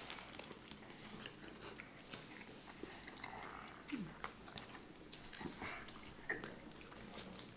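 Faint chewing of submarine sandwiches: soft wet mouth clicks and smacks scattered throughout, with a brief 'mm' hum now and then.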